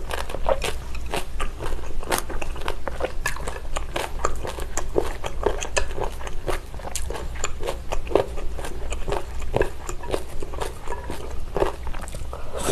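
Close-miked chewing of a mouthful of abalone mulhoe, cold soup with raw abalone, noodles and vegetables: dense, irregular wet clicks and crunches with no break.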